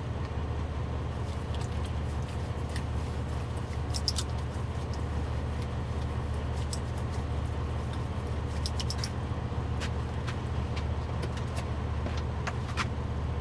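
Steady low drone of a semi truck's diesel engine idling, heard inside the cab. A few light clicks and rattles of small items being handled come over it.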